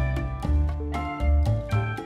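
Instrumental background music with a bass line and a quick run of short pitched notes.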